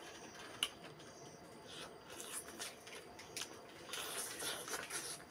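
A person eating rice, fried fish and egg with the fingers: wet chewing and lip-smacking in short irregular bursts, with a sharp click about half a second in and a denser run of smacks about four seconds in.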